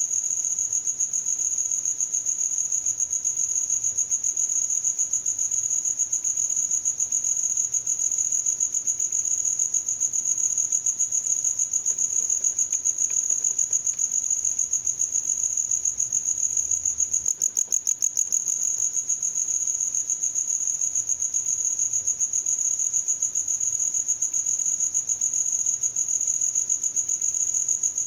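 Cricket chirping in a continuous, high-pitched trill of rapid, even pulses.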